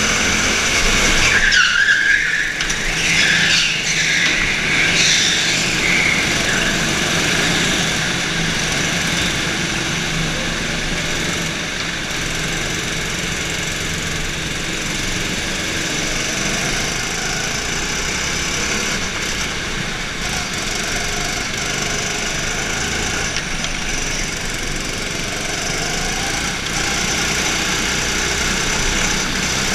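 Go-kart engine running steadily under throttle. About one and a half to six seconds in, the tyres squeal with a wavering high pitch through a corner.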